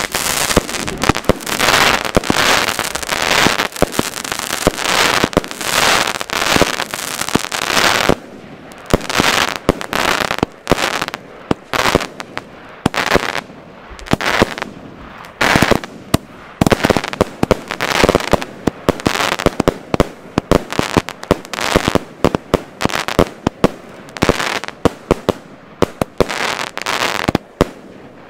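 Consumer firework battery (cake) firing a dense barrage of shots, launch bangs mixed with crackling bursts overhead. After about eight seconds the shots come apart into separate sharp bangs, several a second.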